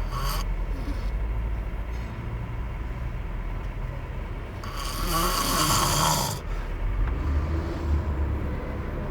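A man asleep in a car's back seat snoring, with one loud, long snore about five seconds in lasting nearly two seconds.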